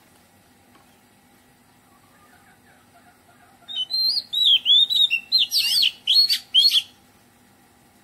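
Oriental magpie-robin singing one loud phrase of about three seconds, a few seconds in: rapid, clear whistled notes that slide up and down, broken near the end by a few harsh, scratchy notes.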